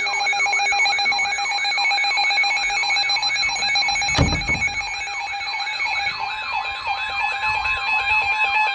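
Several electronic alarms of weather alert radios sounding at once: a falling sweep that repeats about three times a second over steady high beeping tones, with a single thump about four seconds in.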